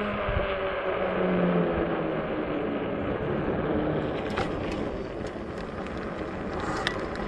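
Ecotric 20-inch e-bike's hub motor humming, its pitch slowly falling, over wind and tyre noise. From about four seconds in come scattered clicks and rattles.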